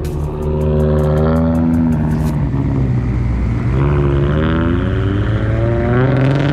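A car engine revving hard, its pitch climbing and falling twice.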